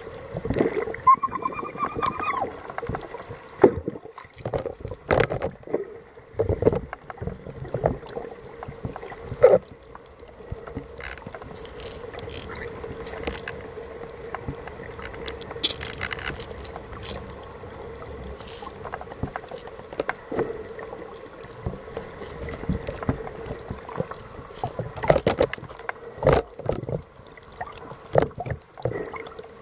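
Underwater recording close beneath the surface: water rushing and bubbling around the camera, with frequent irregular knocks and splashes over a steady low hum. About a second in, a short whistle-like tone rises slightly and holds for about a second.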